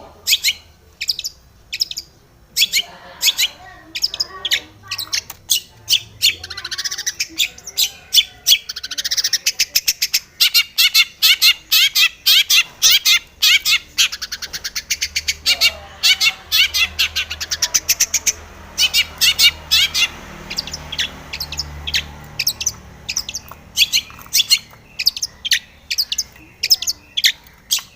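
Long-tailed shrike singing: a fast run of sharp, high chips and chattering notes, several a second, with harsher squawky phrases mixed in.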